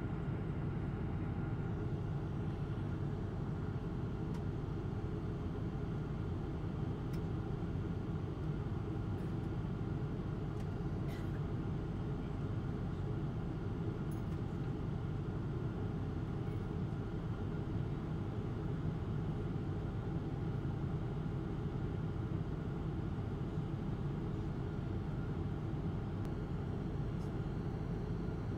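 Steady low roar of a Boeing 777-200's engines and airflow heard inside the passenger cabin in flight.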